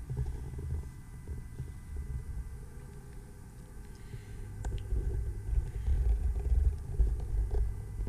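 Low, uneven rumbling and dull thuds from a handheld camera being moved about and from footsteps on a carpeted floor, heavier for a couple of seconds in the second half, over a faint steady hum.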